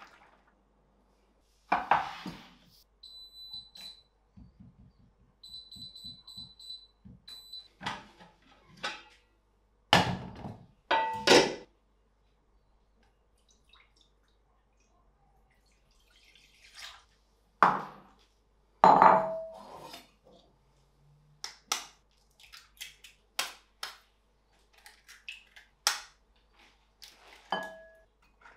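Kitchen handling sounds with no speech: knocks and clanks of stainless steel cookware and glass bowls, loudest about ten and eighteen seconds in. A high beeping tone sounds a few seconds in, and a run of light taps and clicks near the end comes as eggs are handled.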